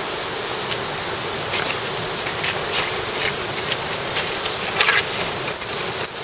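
Mountain bike tyres knocking and clattering over loose rocks as riders come down a stony trail, the clicks growing more frequent after a second or two and bunching together near the end, over a steady hiss of forest background, possibly insects.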